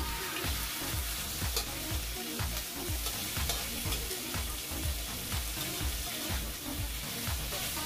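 Pork spare rib pieces sizzling in oil in a stainless steel wok while a metal spatula stirs and scrapes them, with repeated clicks and knocks of the spatula against the pan.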